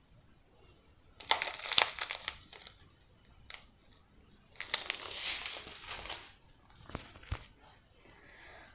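Plastic packets of diamond-painting drills crinkling as they are handled and turned over, in three bouts of rustling with a few sharp clicks.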